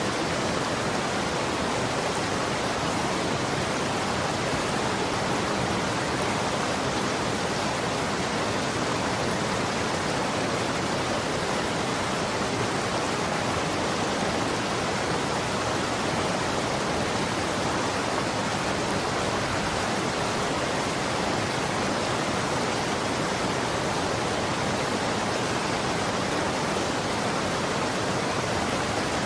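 Running water rushing steadily, an even, unbroken noise like a stream or small waterfall.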